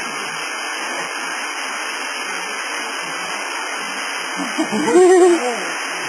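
Steady rush of a waterfall pouring into its pool, with a loud, wavering hoot-like call from a person about five seconds in.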